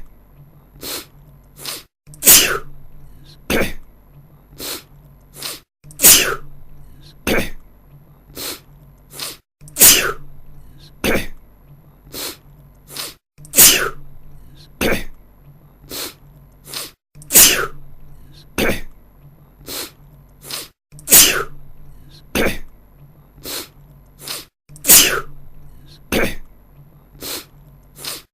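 A man sneezing over and over, a loud sneeze about every four seconds, each followed by a few shorter, quieter ones, the same pattern repeating as a loop.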